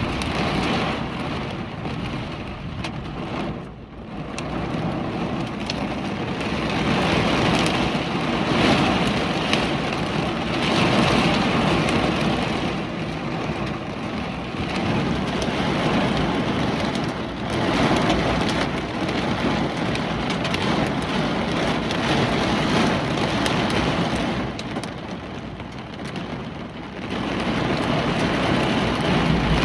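Heavy rain and gusting hurricane wind, a dense rushing noise that swells and eases in waves, with brief lulls about four seconds in and again late on.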